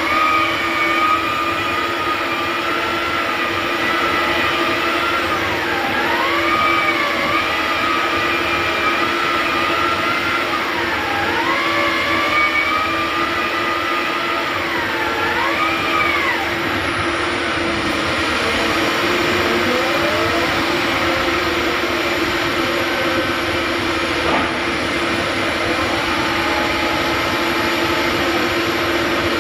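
Rotary bored-pile drilling rig's engine and hydraulic drive running steadily under load, with a whine that dips in pitch and recovers three times in the first half as the auger works in the hole.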